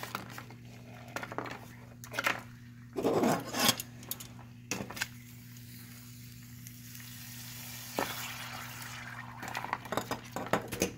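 Metal tools clinking and scraping against an aluminium pan of liquid nitrogen while a lump of frozen gasoline is poked and lifted, with the loudest clatter about three seconds in. A soft hiss from the boiling liquid nitrogen swells in the second half.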